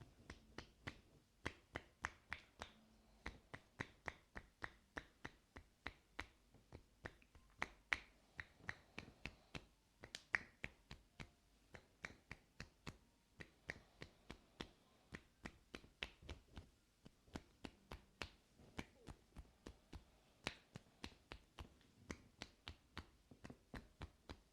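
A long, even run of sharp taps or clicks, about three to four a second, made by an ear-cleaning worker's hands or tools at the ear.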